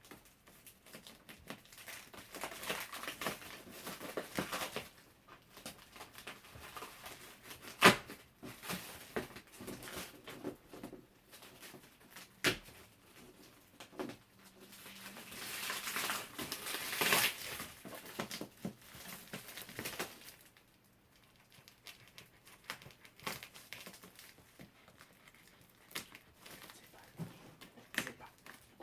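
Packaging being handled and opened by hand, heard as short irregular rustles and sharp clicks, with a loud knock about eight seconds in and a longer rustle around sixteen seconds.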